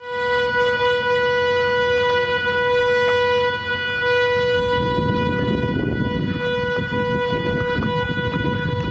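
Steady high-pitched electrical whine at one fixed pitch from the motors of a DIY Arduino-driven brushless camera gimbal, holding its position. About halfway in, a low, rough noise joins it.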